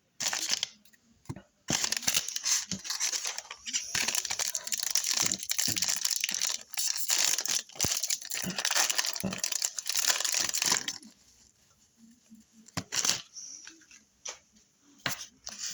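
A trading-card pack wrapper being torn open and crinkled, a dense crackling that runs about ten seconds with brief gaps. A few light clicks follow as the cards are handled.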